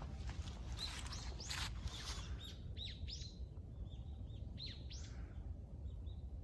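Small songbirds calling: a quick series of short, high chirps that sweep downward, coming after a few brief noisy rustles in the first two seconds, over a low steady background rumble.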